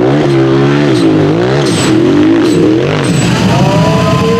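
Tube-chassis UTV's engine revving hard under full throttle on a steep hill climb, its pitch surging up and down several times as the throttle is worked, then held high and climbing near the end.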